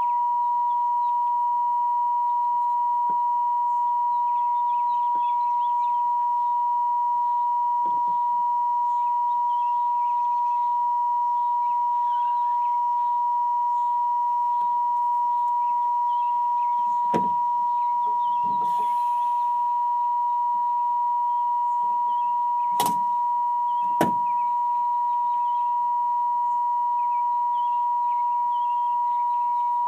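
A steady, high-pitched electronic tone held at one pitch without a break, like a continuous beep. Three faint clicks sound about two-thirds of the way through.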